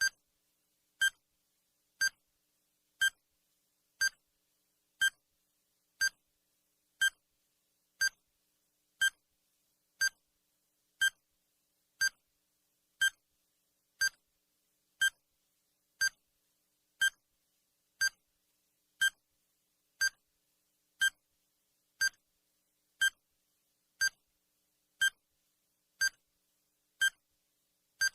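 Countdown timer sound effect: a short electronic beep once every second, each one clipped and the same pitch, marking off the seconds.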